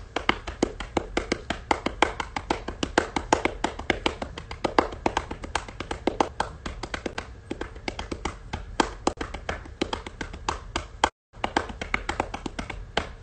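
Fast, uneven rhythmic tapping, several sharp taps a second, which briefly cuts out about eleven seconds in.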